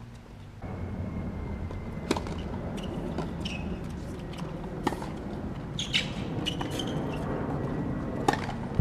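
Tennis rally on a hard court: four sharp pops of the ball off the rackets and court, a second or more apart, over a steady low rumble that comes in abruptly about a second in.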